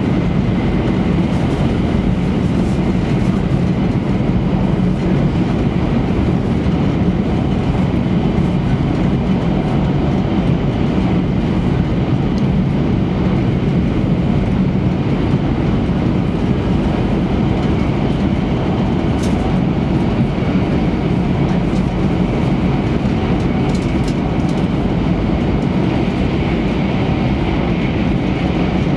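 Inside the cabin of an E3-series Shinkansen running at high speed: a steady, loud rumble of wheels on rail and running gear with a hiss of air over it. The hiss grows a little brighter near the end.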